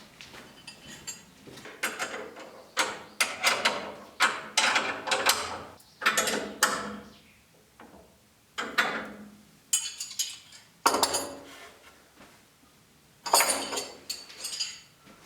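Irregular metallic clinks and knocks, each strike ringing briefly, from tools working the hinge and lock hardware off an old wooden door.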